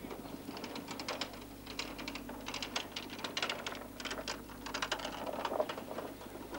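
A hand-pushed cart's wheels rattling and clattering over the paving of a quay: a fast, irregular run of clicks that grows denser about two seconds in.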